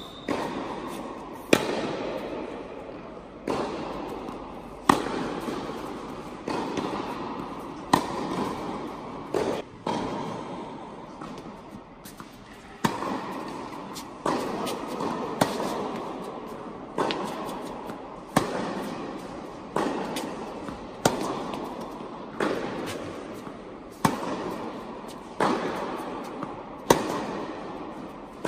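Tennis rally: rackets striking the ball in turn, a sharp pop every second or two, each echoing and dying away in the indoor tennis hall.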